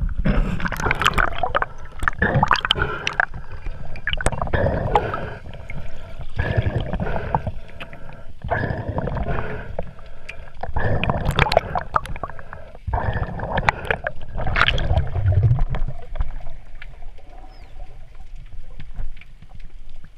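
Water sloshing, splashing and gurgling close to the microphone in uneven surges, easing off in the last few seconds.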